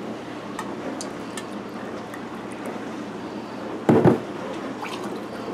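Vodka poured from a bottle into a glass of orange juice, a soft steady pour. About four seconds in comes a single heavy thud of something set down hard on the counter.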